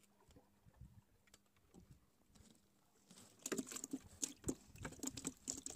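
Faint scattered clicks, then a quick, irregular patter of light taps and knocks starting about three seconds in and lasting a couple of seconds.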